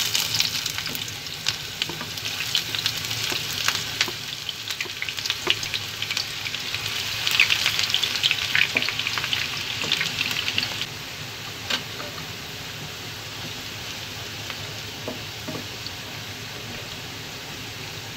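Sliced onions dropped into hot oil and sizzling in a frying pan, stirred with a wooden spatula, with crackling pops over a steady hiss. The frying is loudest in the first half and settles to a quieter, steady sizzle after about eleven seconds.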